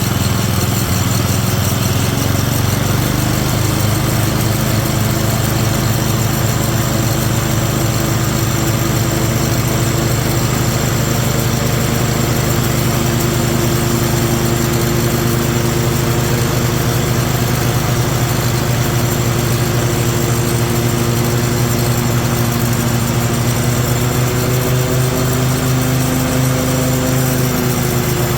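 1998 Kohler Command 16 hp lawn mower engine running steadily, with a higher whine that rises slightly in pitch near the end.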